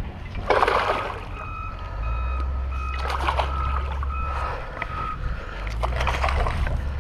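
Baitcasting reel's drag buzzing in short, broken spurts as a hooked smallmouth bass pulls line. Water splashes near the end as the fish thrashes at the surface.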